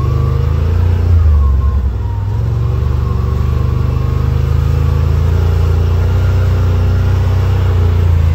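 Yamaha RMAX side-by-side's engine running while driving, a loud steady drone whose revs shift briefly in the first two seconds and then hold even.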